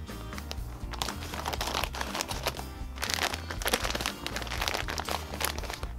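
Clear plastic packet crinkling as it is handled, opened and tipped out to pour out sand. It comes in two bouts, about a second in and again around three seconds in, over background music.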